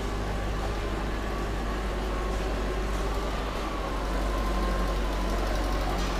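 Steady low rumble of background noise with no distinct event, a faint wavering tone drifting in and out above it.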